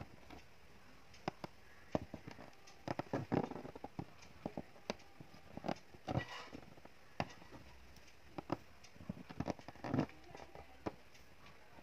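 Aari hook needle punching in and out of fabric stretched taut on an embroidery frame while filling a leaf with silk thread in load stitch: irregular sharp ticks, with short scratchy clusters a few times as the thread is drawn through.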